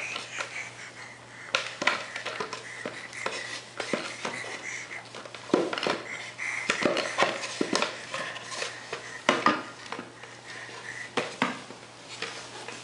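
Irregular knocks and clicks of a hard plastic toy being grabbed and batted against a wooden floor by a crawling baby.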